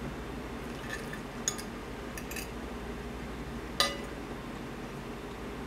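Metal fork clinking and tapping against a plate while cutting and picking up food: a few light clicks, then one sharper, ringing clink about four seconds in.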